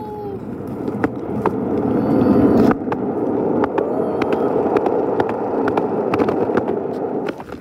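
Skateboard wheels rolling fast down a concrete sidewalk: a loud, steady rumble that builds as the board gathers speed. Sharp clacks come through it as the wheels cross the joints between the slabs. The rumble dies away near the end.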